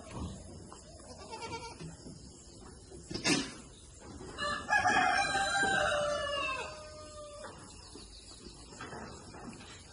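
A rooster crowing: one long call that falls slightly in pitch toward its end, starting about halfway through. A single sharp knock comes shortly before it.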